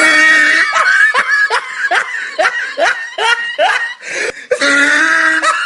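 A laughing sound effect: a rapid, even string of short 'ha' bursts, each falling in pitch, about two to three a second, with a steady held note layered under it at the start and again near the end.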